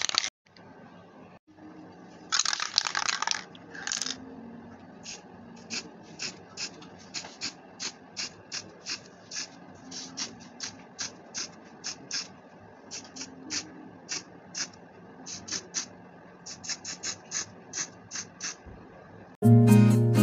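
Aerosol spray-paint can spraying in brief hissing bursts, about two in the first few seconds, followed by a long run of short, sharp ticks roughly twice a second. Strummed acoustic guitar music comes in near the end.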